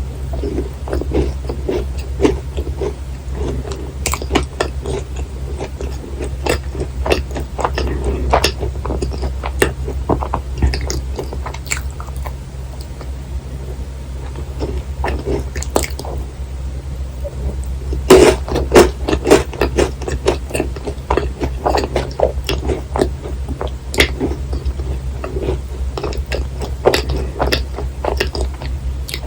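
Close-miked chewing of dense, thick-filled macarons: moist, sticky mouth clicks and squishes going on throughout, with a louder bite or chew a little past the middle. A steady low hum sits under it.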